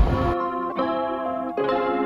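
Background music: the drum beat stops about a third of a second in, leaving sustained ringing chords, with a new chord struck twice.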